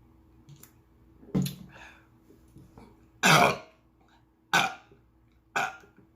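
A person burping four times: a short burp, then a long loud one about three seconds in, then two more short ones, brought up by gulping carbonated Sprite.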